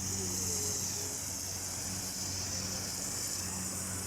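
Steady rush of a small waterfall: an even, high hiss with a steady low hum underneath.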